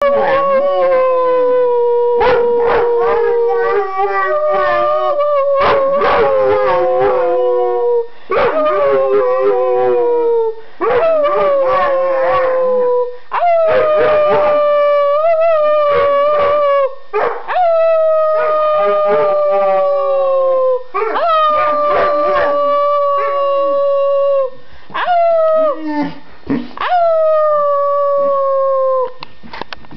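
Dogs howling: about nine long howls one after another, each lasting a few seconds and sliding slowly down in pitch, with more than one voice overlapping during the first half.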